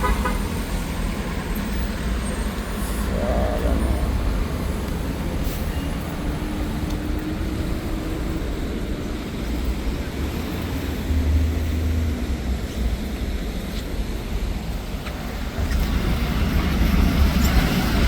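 Street traffic: a steady low rumble of passing vehicles that swells about eleven seconds in and again near the end.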